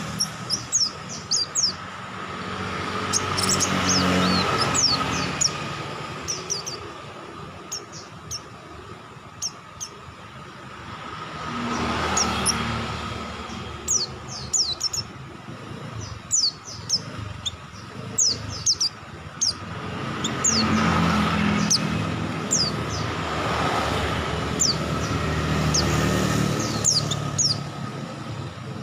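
White-eyes (pleci) singing in rapid bursts of short, high, downward-sweeping chirps. Vehicles pass several times in the background, their engine noise swelling and fading.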